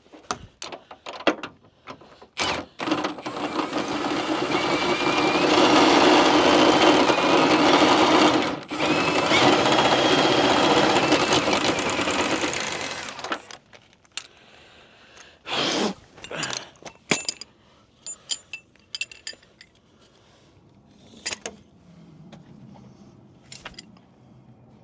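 Impact wrench running in long hammering runs for about ten seconds, with a short break midway, working loose a Jeep suspension bolt. Sharp metal clinks of tools and parts come before and after.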